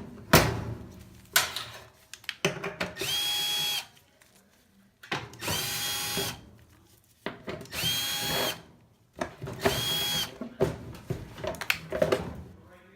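Power drill run in four short bursts of about a second each, its motor whine spinning up and dying away each time. Between the runs come knocks and clunks, the loudest a sharp knock just after the start.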